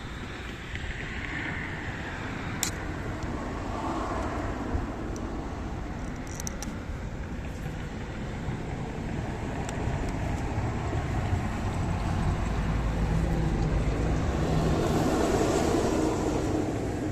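Road traffic noise, a steady rumble that grows louder about twelve seconds in as a vehicle goes by, with a couple of light clicks early on.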